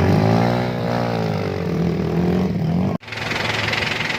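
A motor vehicle engine revving, its pitch climbing and then easing back down over a couple of seconds under load. After an abrupt cut about three seconds in, a steady engine sound takes over.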